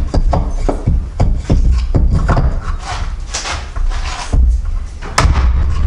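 Hammer blows on a wooden block held against a Honda S2000 CV axle's outer joint housing, knocking the joint off the shaft's splines against its internal C-clip. A quick run of sharp knocks, then a pause and a few more; the joint is stubborn and does not come off.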